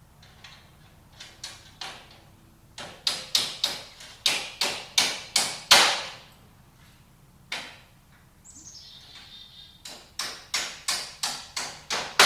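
A hammer strikes pins into an aluminum pallet in two quick runs of sharp blows, about three a second, separated by a pause with one single blow and a short scraping sound.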